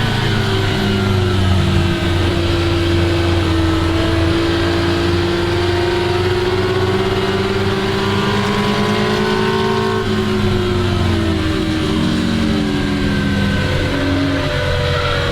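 1961 Ferrari 250 GT SWB's Colombo V12 running under load, its pitch climbing slowly for about ten seconds. The pitch then falls away over a couple of seconds and starts rising again near the end.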